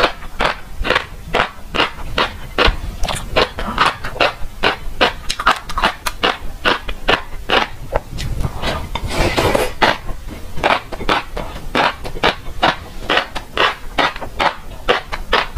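Close-miked chewing of fish roe: a quick run of small crackling pops, about three a second. Near the middle there is a longer scraping swish, the plastic spoon scooping more roe from the plate.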